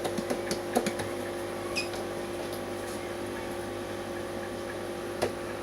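A steady mechanical hum with a few faint clicks and taps.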